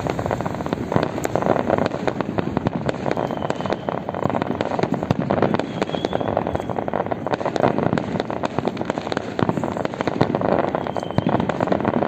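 Fireworks going off in a continuous rapid barrage of crackles and pops, with no pause.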